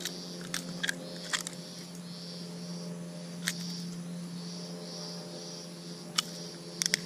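Sharp, irregular clicks and snaps while pliers unhook a red-bellied piranha held in the hand, with a small cluster near the end. Under them run a steady low hum and a high buzz that pulses about twice a second.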